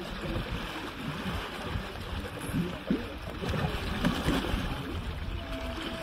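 Shallow river water flowing and splashing around two young Asian elephants rolling and wrestling in it, with a low rumble of wind on the microphone.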